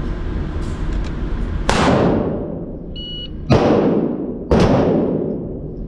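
A gunshot, then the short electronic beep of a shot timer, then two more gunshots about a second apart, each ringing out with a long echo in an indoor range, over a steady low hum.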